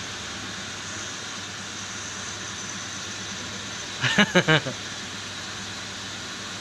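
Steady hissing rush of an air-conditioning unit running. About four seconds in, a man gives a short laugh of a few quick pulses.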